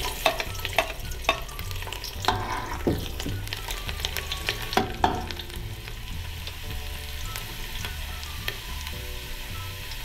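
Sliced garlic sizzling in hot oil in a metal pot, with a steel ladle clinking and scraping against the pot as it is stirred. The clinks come thick in the first five seconds or so and only now and then after that.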